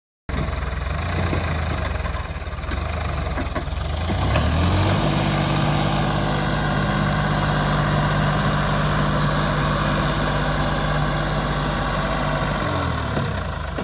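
Diesel engine of a heavy machine idling, then revving up about four seconds in and holding a steady higher speed, before dropping back toward idle near the end.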